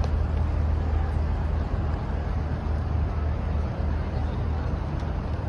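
Boat engine running with a steady low drone under an even rush of noise.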